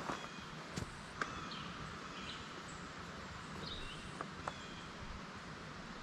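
Small birds chirping in short repeated calls over a steady outdoor hiss, with a few light knocks from handling nearby.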